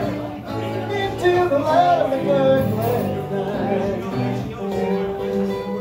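Live acoustic string band playing, with upright bass, mandolin and acoustic guitar under a sung vocal melody.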